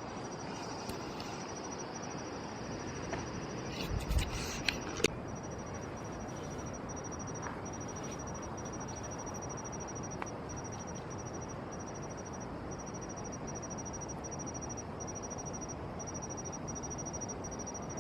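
A high-pitched insect trill, steady but broken by short regular gaps, over a steady background hiss. A few sharp knocks come about four to five seconds in.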